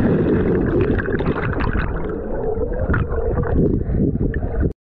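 Heavy wind buffeting the microphone along with water splashing and gurgling around the camera, cutting off abruptly near the end.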